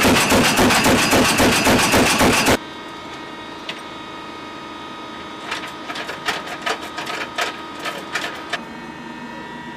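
M242 Bushmaster 25 mm chain gun firing a rapid burst that cuts off sharply about two and a half seconds in. After it come a steady hum and a run of scattered clicks.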